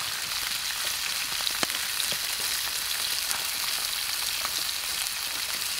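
Brook trout frying in oil in a pan: a steady sizzle with scattered small pops.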